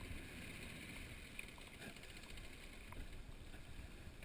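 Faint, steady low rumble of wind and water around a small aluminum jon boat on a lake.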